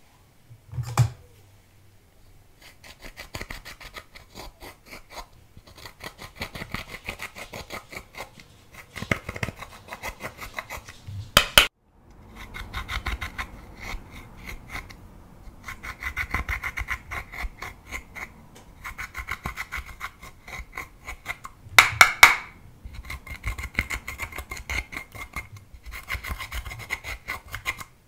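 Dotting tool scraping pressed eyeshadow out of a plastic palette's pans in quick, repeated strokes, with a few short pauses. Two sharp knocks, about 11 and 22 seconds in, are the loudest sounds.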